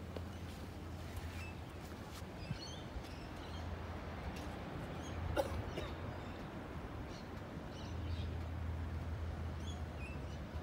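Outdoor background: a steady low hum with scattered short, high bird chirps, and a single brief sharp sound about five seconds in.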